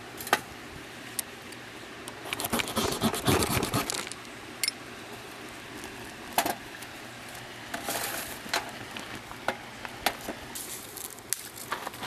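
Things being handled: scattered clicks, clinks and rustles in several short clusters over a steady background hiss.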